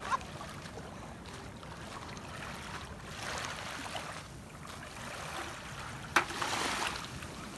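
Low, steady noise of calm shallow seawater and wind at the water's edge. There is a louder rush of noise about three seconds in, and a sharper one about six seconds in.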